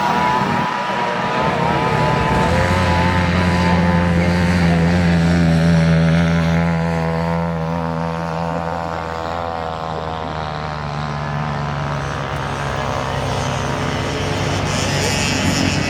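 Off-road race vehicle's engine running steadily at speed, its note wavering a little; it is loudest a few seconds in, then eases slightly.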